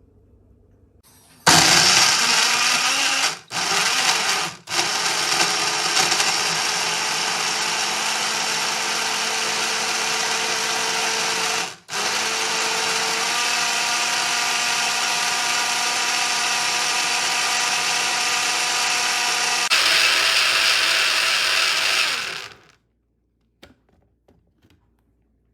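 Breville Blend Active 350 W personal blender running for about twenty seconds, cut off briefly three times, twice near the start and once around the middle. Its tone changes a couple of seconds before the motor stops.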